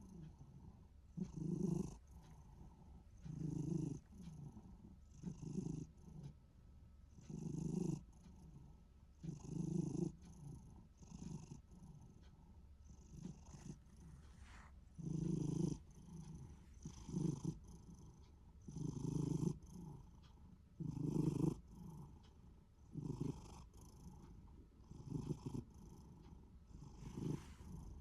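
A Minuet cat's rhythmic purring rumble, swelling about every two seconds with each breath; the owner can't tell whether it is purring or snoring.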